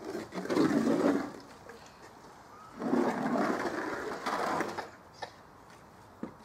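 A large corrugated sheet being hauled out of a canal and dragged over the bank: water pours and splashes off it in two rough surges, the second one longer.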